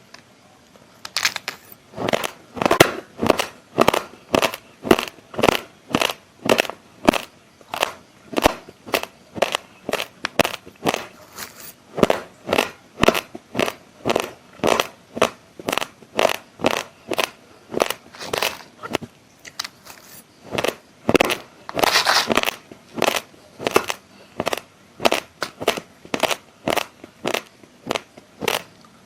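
Close-miked crunching of raw, uncooked basmati rice grains being chewed, a sharp crunch about twice a second, with a denser run of crunches about two thirds of the way through.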